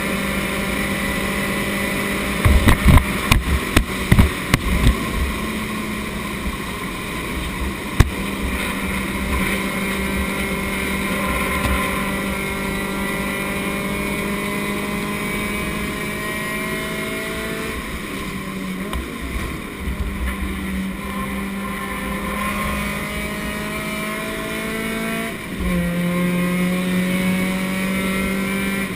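Race car engine running under load, heard from inside the stripped cabin; its pitch climbs slowly for a long stretch, dips briefly, then steps to a new note near the end. A quick run of loud knocks comes about three to five seconds in, with one more knock a few seconds later.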